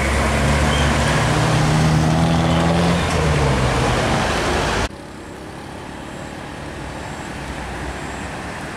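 A truck's diesel engine running loud as the truck passes close by, its pitch held steady. About five seconds in the sound cuts off suddenly to quieter road traffic.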